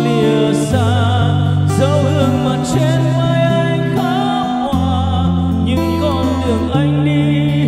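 A man singing a Vietnamese song through a wireless karaoke microphone over a backing track with a steady bass line, played through a karaoke system of G1000 Plus floor speakers and a Monster subwoofer.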